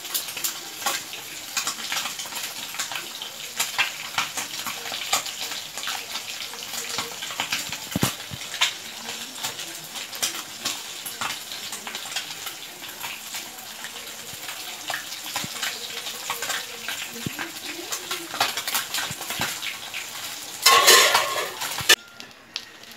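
Fish kulambu gravy boiling in a steel pot with the fish pieces in it, a steady crackle of many small pops and bubbles. Near the end there is a louder burst of noise, about a second long.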